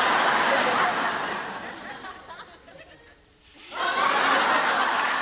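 Sitcom studio audience laughing: one wave of laughter fades out about three seconds in, and a second wave rises about a second later.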